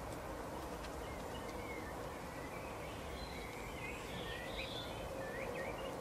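Faint twittering of European goldfinches: short, sliding chirps that come more often from about two seconds in, over a steady background hiss with a low hum.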